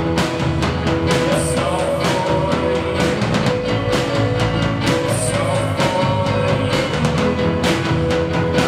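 A rock band playing live: a drum kit keeping a steady beat under electric guitars and keyboard, with a long held note running through.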